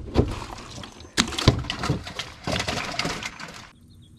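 A cooler lid is handled and a caught bluegill goes into the cooler, with knocks and a washy sloshing of water inside. The clatter stops suddenly about three-quarters of the way through, leaving faint bird chirps.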